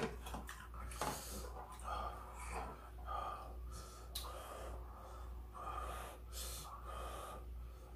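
Close, faint breathing and snuffling: a series of short noisy breaths about one a second.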